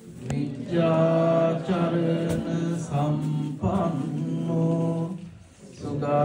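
Buddhist Pali chanting by a male voice: slow phrases of long, held notes, with a brief pause about five and a half seconds in before the chant resumes.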